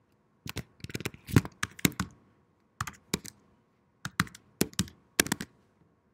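Typing on a computer keyboard: sharp key clicks in several quick bursts with short pauses between them.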